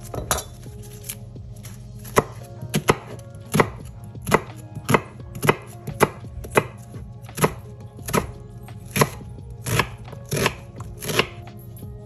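Kitchen knife chopping a Vidalia onion on a wooden cutting board: a run of sharp knocks of the blade striking the board, about two a second and unevenly spaced.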